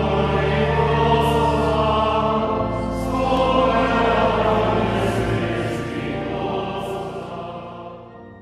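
A choir singing slow, held chords of sacred music over a sustained low bass, fading out near the end.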